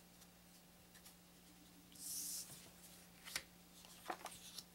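Cardboard game cards handled on a wooden table. A short rustle about two seconds in as a card slides, then a sharp tap and a few light clicks and taps near the end as cards are picked up and set down.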